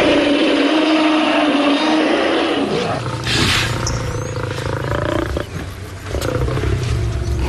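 Loud calls of large wild animals: one long, steady call lasting about two and a half seconds, a short hissing burst, then more calls over a low rumble.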